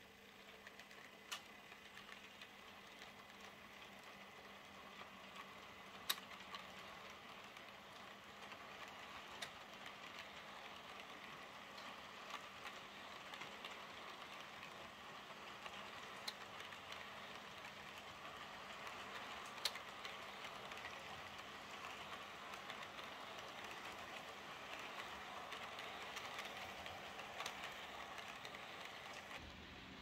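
Model railway coaches rolling along the layout track with a faint, steady wheel-on-rail hiss that slowly grows louder toward the end. A few sharp clicks stand out, as wheels pass rail joints.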